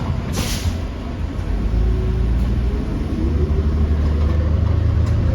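City bus engine rumbling from inside the bus, growing louder about two and three seconds in as the bus picks up speed. A short burst of hiss comes about half a second in.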